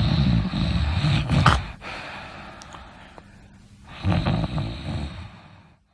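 A sleeping person snoring: two loud snores about four seconds apart, with quieter breathing between them.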